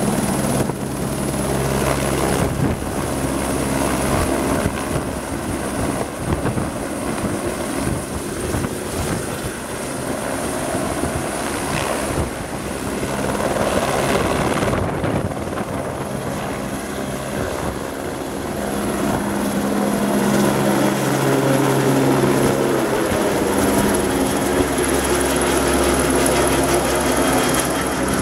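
Airbus H125 (AS350 B3e Esquilo) helicopter, driven by its single Arriel 2D turboshaft, lifting off and climbing away: main-rotor blade chop over a steady high turbine whine. The sound grows louder in the last third as the helicopter climbs overhead.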